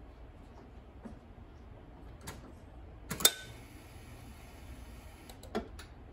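A few faint clicks and knocks, with one sharp click a little after the middle and a faint hiss after it for about two seconds. The engine is not yet running.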